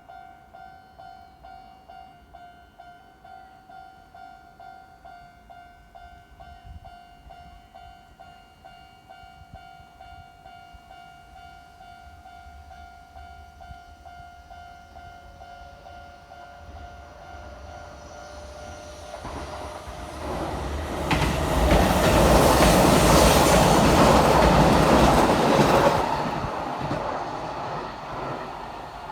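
Japanese railway level-crossing alarm ringing in an even, repeated electronic ding. About twenty seconds in, an electric commuter train passes over the crossing with a loud rush of wheel and rail noise that lasts several seconds, then fades away.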